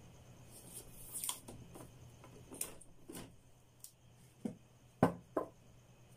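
Hands finishing a wire splice with black electrical tape, then handling noise: scattered small clicks and knocks, the two loudest close together about five seconds in, over a faint steady low hum.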